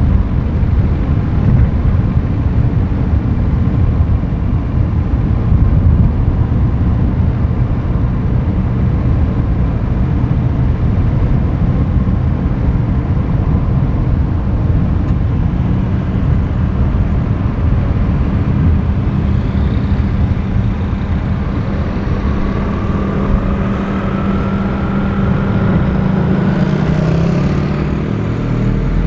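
Road and wind noise from a moving vehicle: a steady low rumble. From a little past halfway an engine hum comes up, and near the end a higher engine note rises slowly in pitch.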